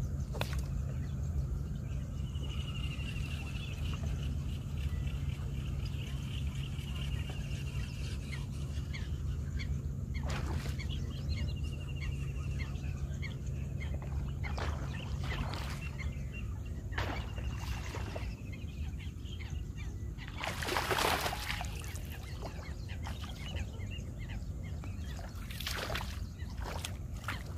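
Hooked snakehead thrashing and splashing at the water's surface during the fight, in several short bursts, the biggest about two-thirds of the way through and another near the end. Faint repeated bird calls and a steady low hum that stops a little past halfway lie underneath.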